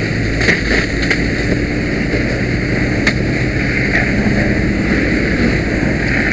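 Fire hose nozzle spraying a steady water stream onto a burning excavator: a loud, continuous hiss of water, with a low steady hum beneath and a few sharp clicks.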